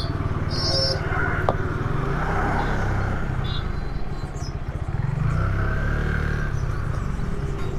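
Motorcycle engine running at low revs, pulsing steadily, amid busy road traffic, with two short high beeps near the start.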